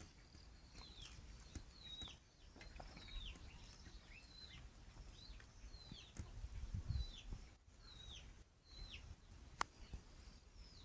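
A small bird chirping over and over, each chirp a short high note falling in pitch, about one a second. A single sharp click comes near the end.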